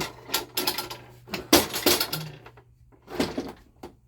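Hand tools clinking and clattering on metal, in irregular clusters of short, sharp knocks, while bolts on the underside of a mower are being loosened.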